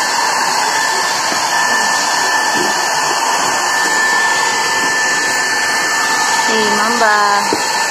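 Handheld electric hair dryer blowing steadily, a rush of air with a thin, steady whine, drying a freshly bathed dog's wet coat.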